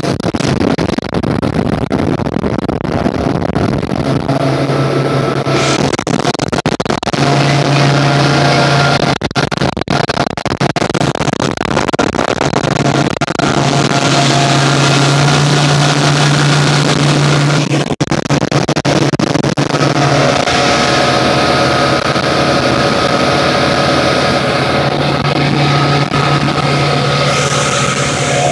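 Suzuki 150 outboard motor running steadily at cruising speed, its engine drone heard under heavy rushing wind and water noise as the boat planes.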